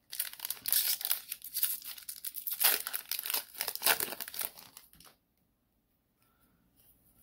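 Foil wrapper of a 2020 Panini Playoff football card pack being torn open and crinkled by hand, a dense crackling that stops about five seconds in.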